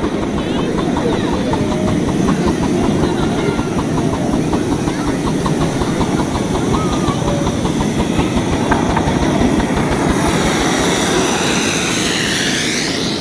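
A 1937 G&S 10¼-inch gauge 4-4-2 steam locomotive working toward the camera with its passenger train, its exhaust beating steadily over the rumble of wheels on the rails. It passes close near the end.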